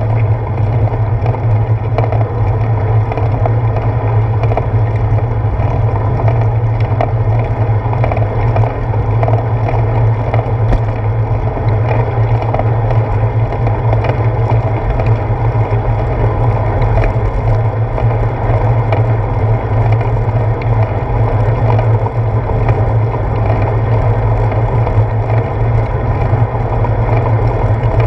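Steady rumble of a bicycle rolling along a wet paved path, picked up through a handlebar-mounted GoPro: tyre noise and road vibration coming through the mount, with faint scattered ticks.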